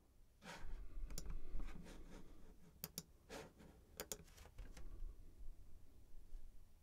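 Faint, scattered clicks of a computer mouse, a few of them in quick pairs.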